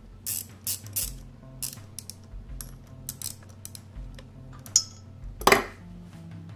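Small metal clicks and clinks of a socket wrench and hand tools working the ignition coil's mounting bolts on a small engine, with one louder knock about five and a half seconds in. Quiet background music with a bass line plays underneath.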